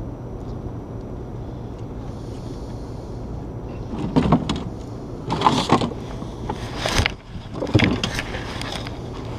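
Handling noise in an inflatable fishing boat: loud rustling, scraping and knocks from about four seconds in, as the angler plays a hooked fish on a bent rod and reaches into the boat for the landing net. A steady low rumble lies underneath.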